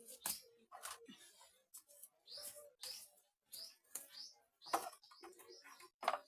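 Faint bird calls: several short chirps outdoors, mixed with a few sharp knocks or taps.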